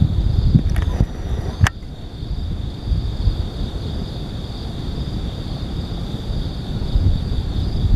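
Cicadas singing in one steady unbroken drone, with wind rumbling on the microphone and a couple of sharp clicks about a second in.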